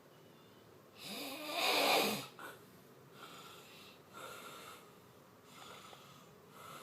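A person snoring: one loud snore with a wavering pitch about a second in, then softer snoring breaths roughly once a second.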